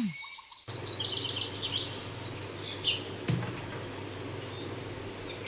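Birds chirping and singing in short repeated high calls over a steady outdoor background hiss, with a short falling tone right at the start.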